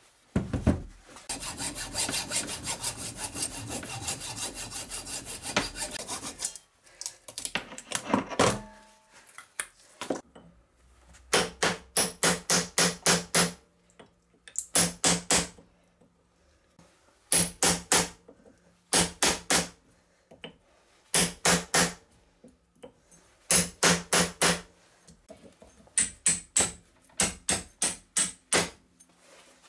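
Steel rod driven as a punch into a transformer's winding window to break out the copper coil: repeated bursts of about five quick, sharp metal-on-metal strikes with a short ring after them. Near the start, several seconds of continuous rasping scraping on the transformer.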